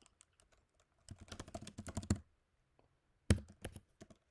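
Computer keyboard typing: a quick run of keystrokes about a second in, then one louder keystroke a little after three seconds, followed by a few lighter ones.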